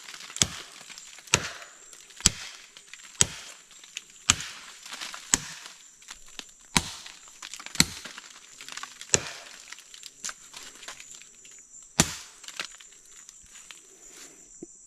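A machete blade chopping into a palm trunk, about a dozen hard strikes roughly one a second, the loudest about twelve seconds in, then stopping. The strokes are cutting down the palm to get at its heart, the swamp cabbage. A steady high insect drone runs underneath.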